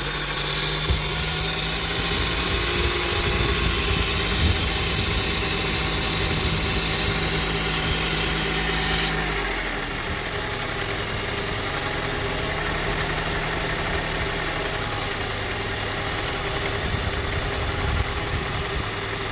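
2002 Honda CR-V's 2.4-litre four-cylinder engine idling just after a start, first at a raised idle with a hiss over it, then dropping to a lower idle about nine seconds in. The engine has an unstable, rough idle.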